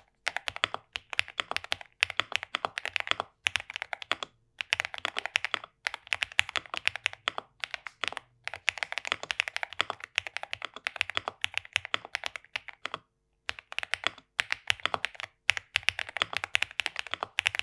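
Typing on an Akko MOD007 PC mechanical keyboard with a polycarbonate case and Akko CS Piano switches, tape-modded under the PCB for a thocky, poppy sound. The keystrokes come in quick runs of about a second, with short pauses between them.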